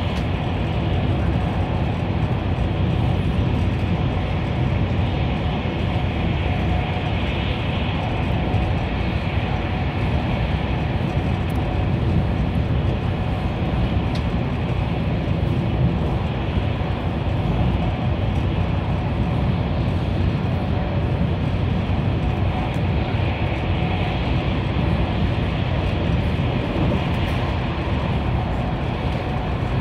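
Steady running noise of a high-speed train at about 200 km/h, heard from inside the carriage: an even low rumble of wheels on rails with a fainter hiss above it.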